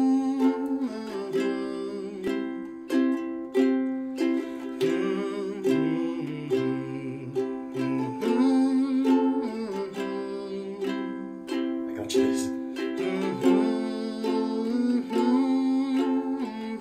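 Background music: a tune of plucked-string notes in a steady rhythm.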